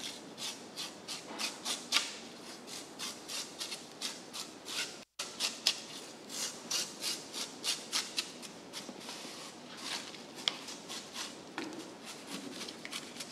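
Broad blade scraping the scales off a giant bluefin tuna's skin, in rapid repeated strokes of about three a second.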